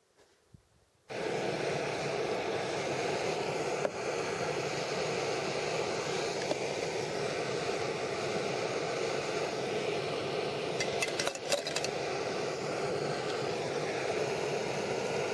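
Gas canister stove burner running with a steady hiss, starting abruptly about a second in. About two-thirds of the way through, brass rifle cartridges clink as they are dropped into a mug.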